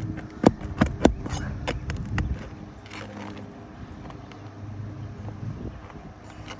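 A string of sharp knocks and clicks from hand work on asphalt roof shingles, loudest and most frequent in the first half, over a steady low hum.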